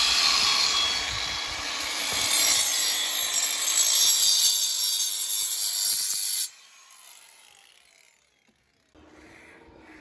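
Cordless angle grinder cutting through a worn-out steel winch cable from an ATV plow: a harsh, steady grinding hiss that cuts off abruptly about six and a half seconds in, followed by the motor winding down.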